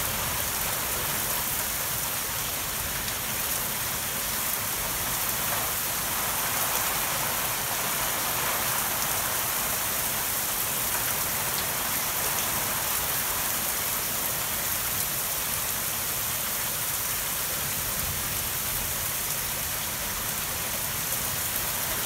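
Torrential rain pouring down in a steady, heavy downpour, hissing evenly on roofs, lawns and pavement.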